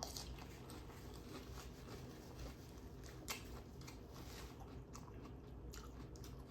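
A person chewing crisp lettuce salad: a run of small wet crunches and clicks, with one sharper crunch about three seconds in.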